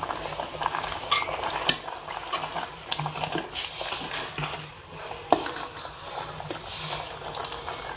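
A metal ladle stirring thick black glutinous rice porridge in a metal pot. It knocks and scrapes against the pot now and then at irregular intervals over the bubbling boil, as corn flour slurry is stirred in to thicken it.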